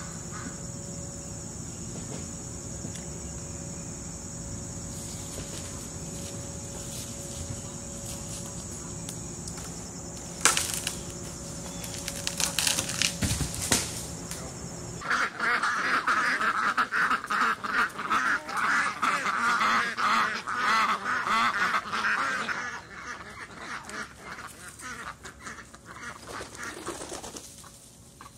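Insects trilling in a steady, high, even tone. About halfway through, a flock of birds starts calling loudly in a dense, busy chorus, which eases off for the last few seconds.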